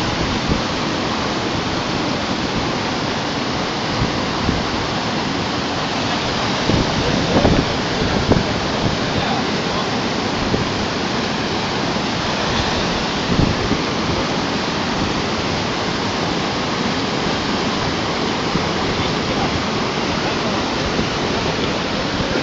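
Steady rush of water running over rocks in a shallow stream, with a few short knocks partway through.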